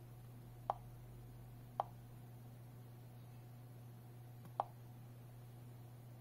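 Three short, light clicks as a finger taps the Teclast M50 Pro tablet's touchscreen: two about a second apart, then a third about three seconds later, over a faint steady hum.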